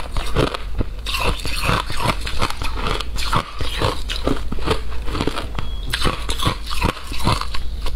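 Flavoured shaved ice being bitten and chewed, close to a clip-on microphone: a steady run of crisp, icy crunches.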